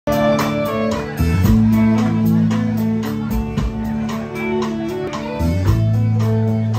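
Live country band playing an instrumental passage: electric guitar and fiddle over bass and a steady drum beat.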